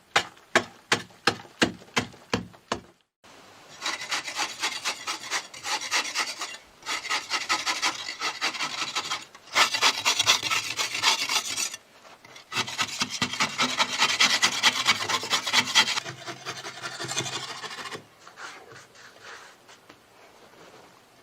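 Sharp knocks, about three a second, for the first three seconds. Then a hand tool rasps against wood in long runs of rapid strokes with short pauses between them, dying down to lighter scraping near the end.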